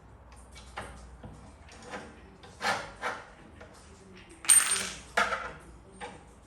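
Golf bag holder tubes and connectors knocking and clinking against each other as they are handled and fitted together. About nine separate knocks. The loudest comes a little over four seconds in and has a short metallic ring.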